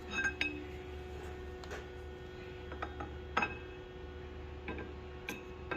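A few light metallic clinks and taps as steel parts and tools are handled, each ringing briefly, over a steady low machine hum.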